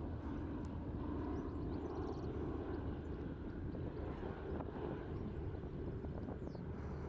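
Douglas C-53 Skytrooper's twin Pratt & Whitney R-1830 radial engines running steadily as the aircraft passes at a distance, a continuous propeller-plane hum.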